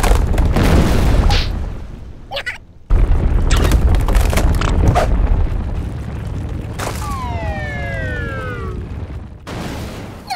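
Cartoon earthquake sound effect: a deep, loud rumbling with crackles of the ground breaking, easing off about two seconds in and then rumbling again for several seconds. A falling, whistle-like tone glides down over it near the end.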